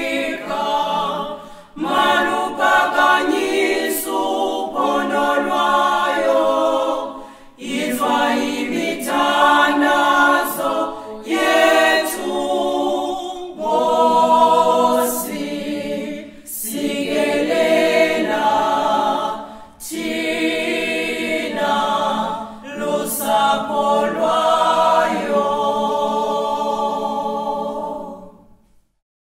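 A cappella choir singing, in phrases of a few seconds with short breaks between them. The song ends and dies away just before the end.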